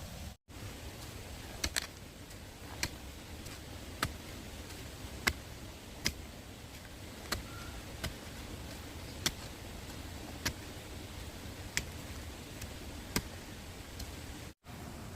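Sharp, separate taps or knocks, about one every second or so, over a steady low rumble.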